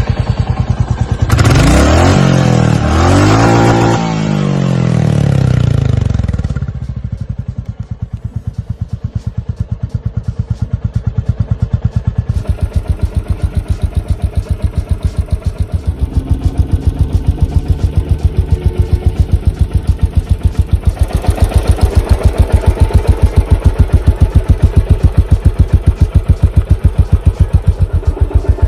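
New-generation Royal Enfield Classic 350's single-cylinder engine on its stock exhaust, revved up and down a few times in the first seconds, then settling to a steady thumping idle that grows a little louder near the end.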